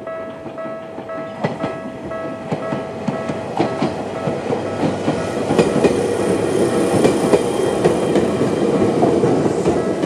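Level crossing's electronic warning bell (Tokyu-type tone) ringing in a steady repeating pattern while an Ueda Electric Railway 1000 series train runs over the crossing. Its wheels clack over the rail joints, and the train noise builds from about a second and a half in until it is loudest in the second half.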